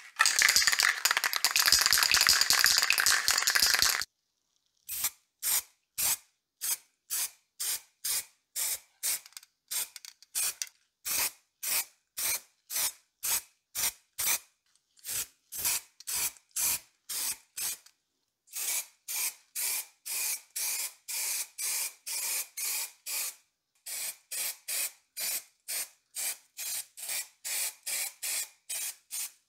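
Aerosol spray can of primer hissing onto the stove's metal parts. A continuous stretch of about four seconds comes first, then many short bursts, about two a second.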